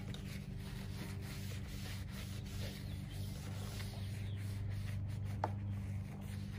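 A rag wet with rubbing alcohol rubbed back and forth over the plastic cowl panel below the windshield, cleaning spots for adhesive clips. A steady low hum runs underneath, and there is a single light tick about five seconds in.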